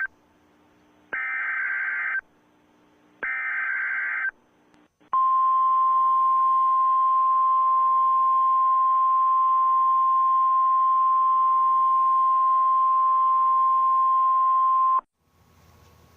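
Emergency Alert System SAME header bursts: two harsh digital data screeches, each about a second long and a second apart, after the tail of a first one. Then the NOAA Weather Radio 1050 Hz warning alarm tone: one steady high tone held for about ten seconds that cuts off sharply, signalling that a warning follows.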